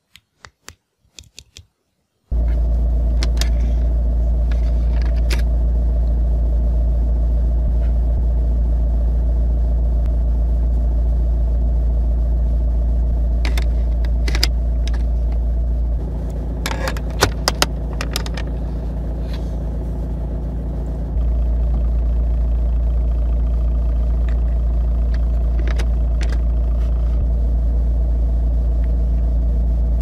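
A few light clicks of a metal car charger being handled. Then the steady low rumble of a car engine idling, heard from inside the cabin. Partway through, the rumble eases a little and a short run of clicks comes as the charger is pushed into the car's 12 V socket.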